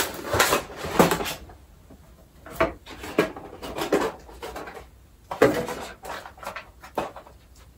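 Handling and opening the packaging of a Rode VideoMicro microphone: irregular rustles, crinkles and light knocks of the box and its inner packing, in several short clusters.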